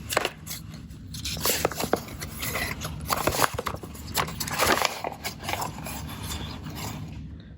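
Paper instruction manual being handled and opened: irregular rustling and scraping with scattered small taps, dying down near the end.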